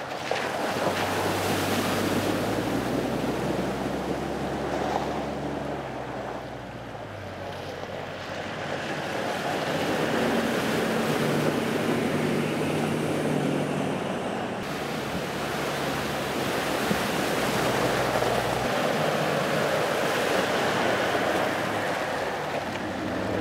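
4WD vehicles wading through a river crossing: water rushing and splashing around the wheels and bodywork, with the engines running steadily underneath. The mix changes abruptly a few times.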